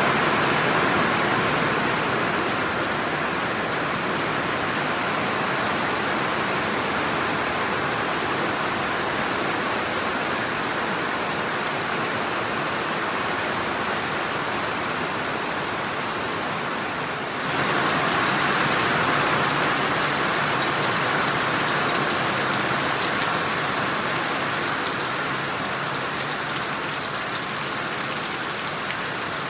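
Steady rain falling in a dense, even hiss. About 17 seconds in it shifts abruptly to a louder, brighter patter of rain.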